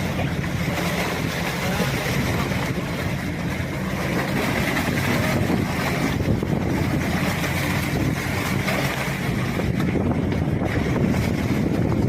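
Boat motor running steadily, with wind noise on the microphone.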